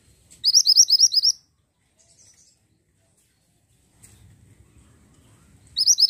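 Minivet calling: a fast run of about eight high, rising chirps lasting about a second, then a second run near the end.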